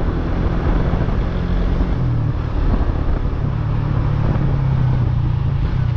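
Suzuki GSX-S150 motorcycle's double-overhead-cam engine running under way at low speed, its note getting stronger about halfway through, with wind rush on the microphone.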